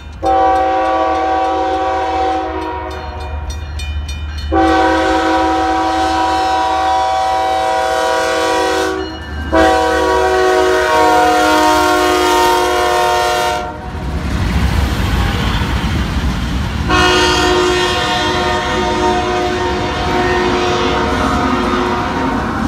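A CSX diesel locomotive's multi-note air horn blowing long blasts at a grade crossing as it passes close by. The horn breaks briefly about nine seconds in, and again for about three seconds from around fourteen seconds, when the heavy rumble of the locomotive's diesel engine comes through. The crossing's electronic bell dings faintly under the first blast.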